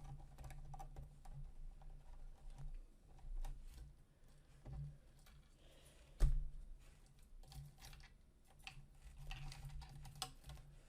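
Small clicks and light rattles of hands working motor cables and their plastic connectors into a 3D printer's electronics housing, with one louder knock about six seconds in.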